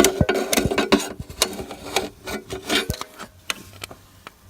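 Irregular rubbing and scraping with a quick run of sharp clicks and knocks, thinning out after about three seconds: handling noise as things are moved about by hand.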